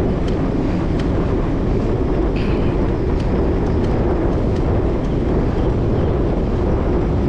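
Steady wind rush on an action camera's microphone while riding a bicycle at speed, with a few faint ticks scattered through it.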